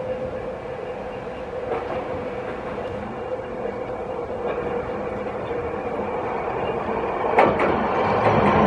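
Hankai Tramway Mo 161-type tram running along the track, getting louder as it approaches. A sharp click comes near the end.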